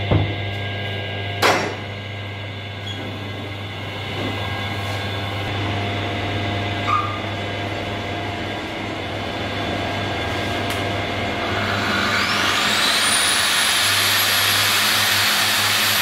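Belt-driven lathe running with a steady hum, with two sharp knocks in the first couple of seconds. About twelve seconds in, an angle grinder clamped on the lathe's tool post switches on: its whine climbs quickly to a steady high pitch with a loud hiss beneath it, ready to resurface a clutch pressure plate.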